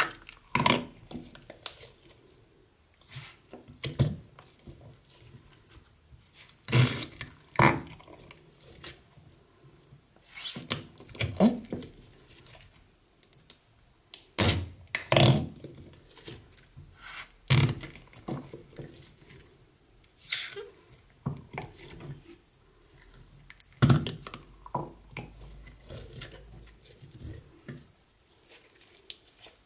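Sticky slime being poked and pressed by hand, giving irregular short wet clicks and pops every second or two with quiet gaps between.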